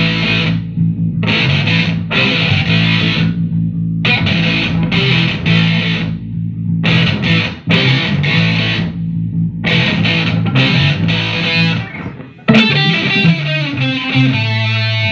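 Electric guitar and electric bass playing together: the guitar plays chords in repeated short stabs over a steady bass line. About twelve seconds in the sound drops briefly, then comes back louder with a denser stretch of guitar.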